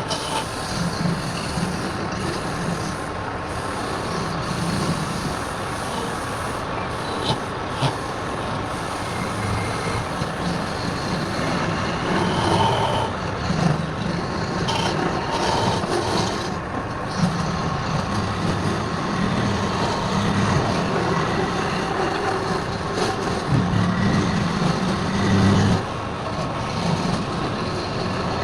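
Wood lathe running steadily, with a turning tool or abrasive working against the spinning wood, making a continuous rubbing, scraping noise that swells and eases.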